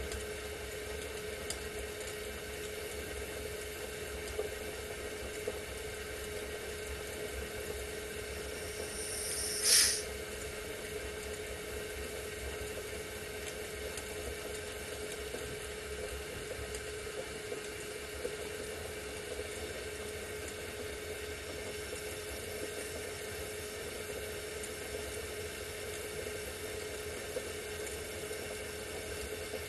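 Gas torch flame hissing steadily, with a steady hum underneath. About ten seconds in there is one brief, louder sharp sound.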